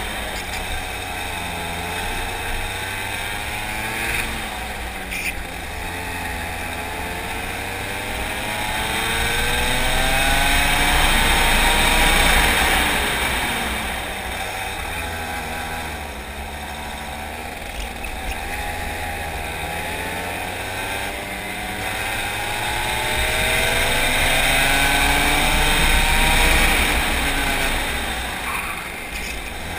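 Racing kart engine heard onboard at speed, its revs climbing and falling again and again through the lap. It is loudest twice, as it winds up to high revs along the straights, and drops back as it slows for the corners.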